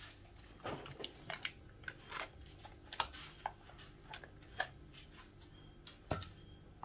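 A spoon scooping soft spread from a plastic tub and knocking it into a stainless-steel mixing bowl: scattered light taps and clicks, the sharpest about three seconds in.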